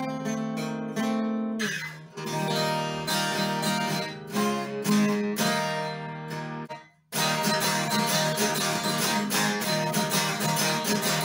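1969 Framus Texan acoustic guitar, tuned a half step down with its neck freshly reset, strummed hard and loud with chords ringing out. The playing stops briefly about seven seconds in, then fast, steady strumming resumes.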